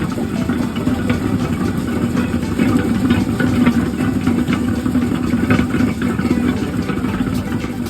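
Sweet potato peeling machine running: a steady motor hum with a continuous irregular clatter of the potatoes knocking and scraping inside.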